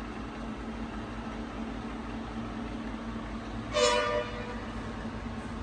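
Pinacho SP/250 lathe running with a steady low hum, its lead screw engaged and driving the carriage along the bed. About four seconds in, a loud pitched tone cuts over it for about half a second.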